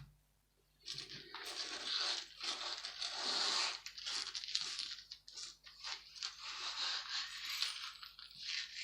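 Small pieces of copper scrap being handled, rustling and clinking with many small clicks, after a single click at the start.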